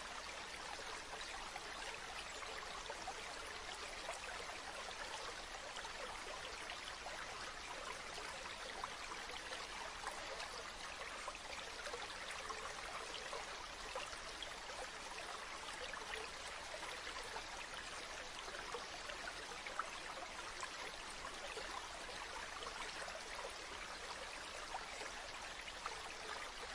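A stream flowing steadily, a continuous babble of running water with small splashes now and then.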